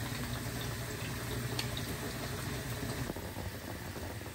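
Hot oil sizzling steadily as breaded chicken tenders fry in a pan, with one small click about one and a half seconds in.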